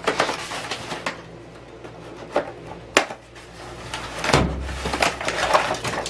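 Bike parts and packaging being handled: scattered knocks, clicks and rustling. A sharp click comes about three seconds in, and a heavier bump with rustling follows a little after four seconds.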